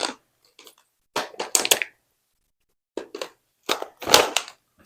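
Packaging of a bag of mini chocolate chips being handled, crackling and crinkling in several short clusters of sharp clicks.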